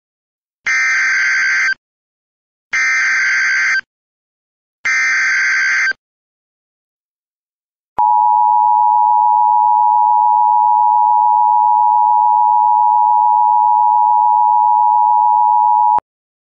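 Emergency Alert System tones: three short bursts of the SAME digital header, each about a second long, then the two-tone EAS attention signal held steady for about eight seconds before it cuts off, signalling the start of an emergency alert.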